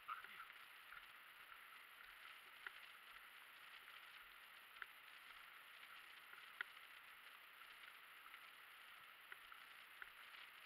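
Faint, muffled hiss of a Rossignol E-Track Trail electric mountain bike rolling down a rocky gravel trail, with a few sharp, irregular clicks and knocks as it rattles over bumps.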